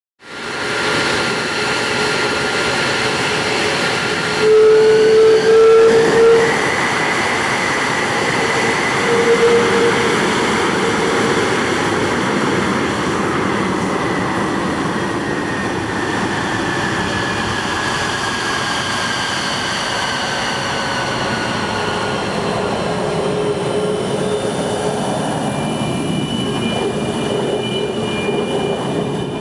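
Lockheed Martin F-22 Raptor's twin Pratt & Whitney F119 turbofans running at ground idle as it taxis. A steady rush of jet noise carries a turbine whine that rises in pitch about six seconds in, then slowly sinks, with a louder surge around five seconds in.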